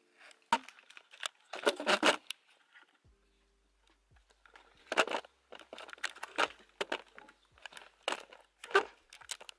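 Handling noise from a camera being gripped and moved: irregular rustles, scrapes and clicks in short scattered bursts, with a sharp click about half a second in.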